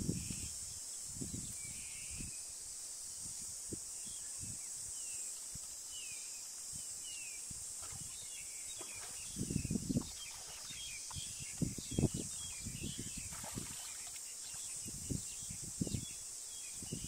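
Outdoor ambience: a steady high insect drone with small birds chirping, and now and then thuds and rustles of a person working a stick at the muddy water's edge and stepping barefoot up the dirt bank. The sharpest thuds come about ten and twelve seconds in.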